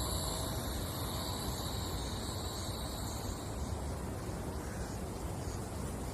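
Outdoor ambience: wind rumbling on the microphone over a steady hiss, with a steady high-pitched buzz that fades out about three and a half seconds in.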